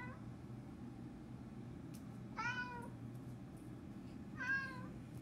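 Recorded cat meows played back by an Amazon Alexa smart speaker: two meows about two seconds apart, each falling in pitch, with the tail end of another one at the start.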